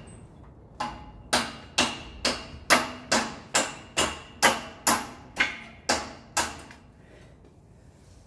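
Hammer driving a nail into wood: about thirteen even blows, roughly two a second, each with a short ring, stopping about six and a half seconds in.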